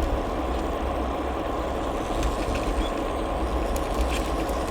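Lego 60052 freight train's electric motor running as the train pulls forward along plastic track: a steady low rumble with a few faint clicks.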